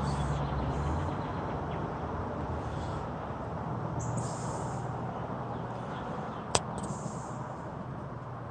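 Steady low hum of distant traffic, with a few faint short rustles and one sharp click about six and a half seconds in.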